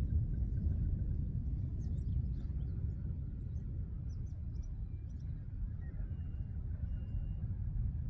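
Outdoor riverside ambience: a steady low rumble, with faint scattered bird chirps and two short thin whistles near the end.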